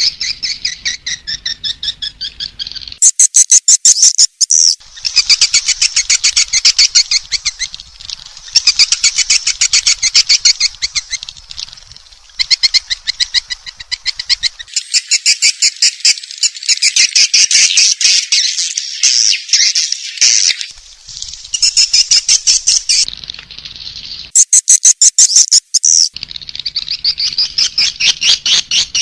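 Swiftlet call-sound lure recording: rapid, unbroken strings of high twittering chirps from edible-nest swiftlets, in stretches that change every few seconds with brief gaps. This is the kind of track played from a swiftlet house to draw the birds in to roost and nest.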